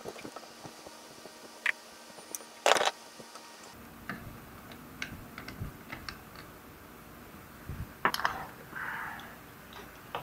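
Light clicks and taps of a nut driver and small metal parts as a bridge rectifier is unbolted and pulled off its heatsink in a battery charger. There is a louder clack about three seconds in, and near eight seconds a knock followed by a short scrape.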